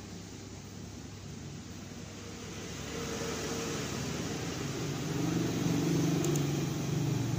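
Steady background noise with a low hum that grows louder over the second half.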